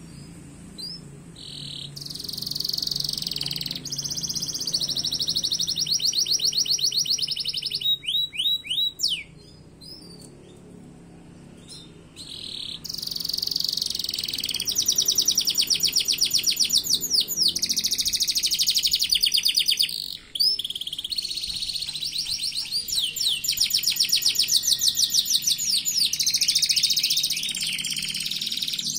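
Caged starblu jambul songbird singing in long, fast trilling phrases of rapidly repeated high notes, with some sweeping whistles. It falls quiet for a few seconds about ten seconds in and breaks briefly about twenty seconds in.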